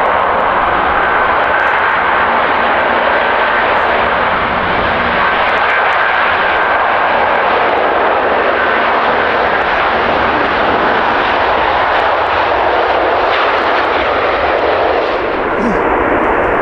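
Airbus A330 twin jet engines at takeoff power as the airliner rolls down the runway and climbs away: a loud, steady roar with a faint high whine riding on it.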